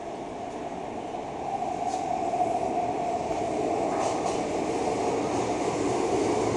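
Metro train approaching and pulling into an underground station, its running noise swelling louder from about a second and a half in, with a few brief high clicks from the wheels on the rails.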